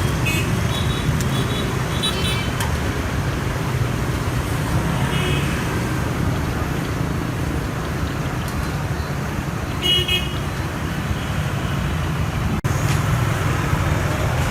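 Steady street traffic rumble with several short horn toots, about two seconds in, five seconds in and ten seconds in.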